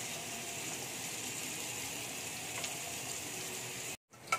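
Tofu slabs frying in oil in a small pan, a steady sizzle. About four seconds in it cuts off abruptly, and a sharp click follows.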